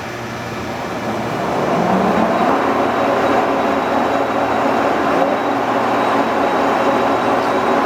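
Lehmann hollow spindle lathe with a 25-horsepower drive, set to 150 RPM, picking up speed about a second and a half in, with a rising whine, then running steadily.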